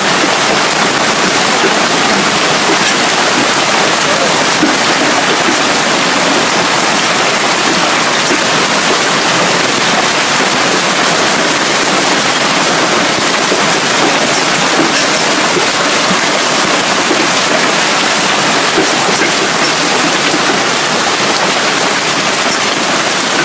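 Hailstorm downpour: hail and heavy rain falling hard, a loud steady hiss that does not let up.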